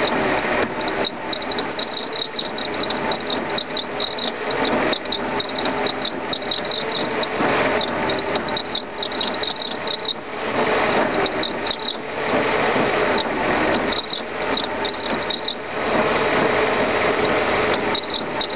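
Mercedes-Benz M119 V8 running, with a fast, high-pitched ratcheting chatter that comes and goes every second or so: the sound of a bad pulley on the belt-driven air pump.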